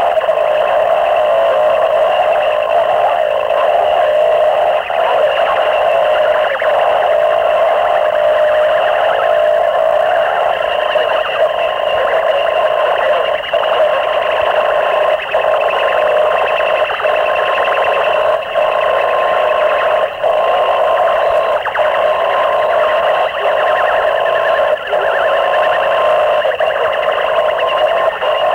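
Harsh noise music from a 1992 cassette demo: a dense, distorted wall of noise made with microphones and homemade electronics. It is held in the middle range with nothing deep or shrill, and cuts out for an instant every couple of seconds.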